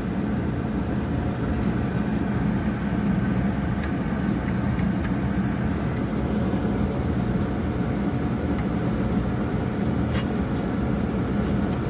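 Carrier gas furnace running steadily, with the burners lit and the blower on: an even rushing noise over a low hum.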